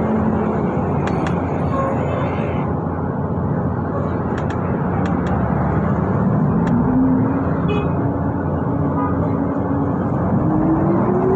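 City bus running with steady road noise, its drive note rising in pitch as it speeds up about six seconds in and again near the end.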